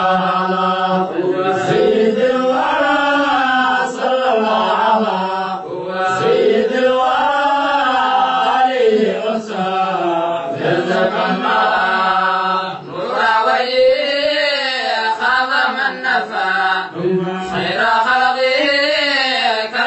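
Chanting of a Somali qasida, an Islamic devotional poem, sung as a melodic line in long phrases that rise and fall in pitch.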